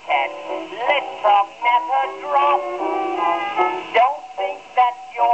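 A 1928 Velvet Tone 78 rpm record playing on an acoustic Victor VV-50 portable Victrola. It is in an instrumental dance-band passage between the sung verses, and the sound is thin, with little bass or top.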